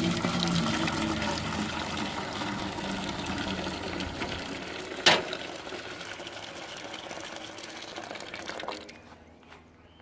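Hot water poured into the smoker's water tray: a steady splashing stream that slowly tapers and stops near the end, with a single sharp knock about halfway through.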